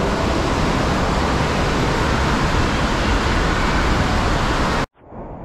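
Steady rushing din of an indoor water park hall: running and splashing water echoing under the roof. It cuts off suddenly near the end.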